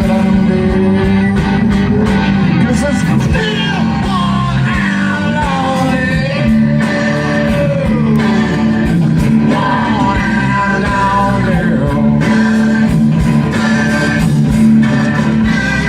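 Live country-rock band playing loudly: drums, bass and electric guitars, with a lead line that slides and bends in pitch through the middle.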